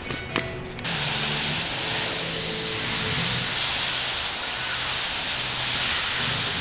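Airbrush spraying paint: a steady, even hiss of air and paint that starts suddenly about a second in.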